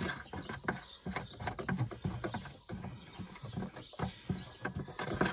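Irregular light clicks and knocks of hands working small plastic parts: the white plastic nuts holding a car's rear light block being unscrewed by hand.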